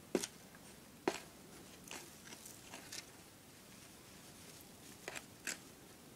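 A spoon stirring dry baking soda and gelatin powder inside a plastic bottle: faint, irregular scraping clicks and crunches.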